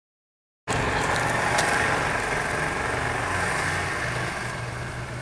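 Vehicle engine idling steadily, cutting in abruptly just under a second in after silence.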